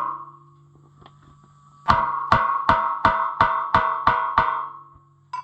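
Hammer blows on the rusted-in bolts holding a steel tractor wheel rim, each strike ringing like a bell. The ring of one blow fades out at the start, then eight quick blows come at about three a second, starting about two seconds in. The bolts are rusted fast and show no give.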